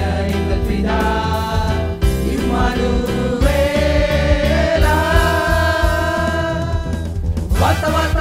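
Young men's vocal group singing a Tamil Christmas song in harmony through handheld microphones, holding one long chord through the middle, over an accompaniment with a steady low pulse.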